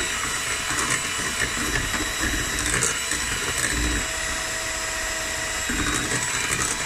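Electric hand mixer running steadily at speed with a steady whine, its twin beaters whisking thick cake batter in a glass bowl.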